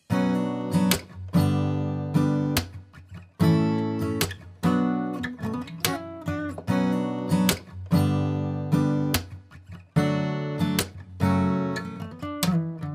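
Background music: guitar chords strummed again and again, each ringing and fading before the next.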